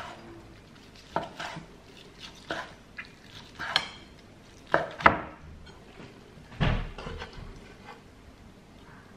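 Chef's knife slicing through a cooked chicken breast onto a wooden chopping board: a series of separate sharp knocks as the blade meets the board, with one heavier thump about two-thirds of the way through.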